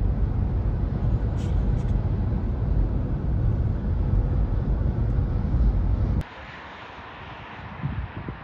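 Steady low road and engine rumble inside a moving car's cabin at speed. About six seconds in it cuts off abruptly to a much quieter hiss of tyres on the road outdoors, which slowly grows louder.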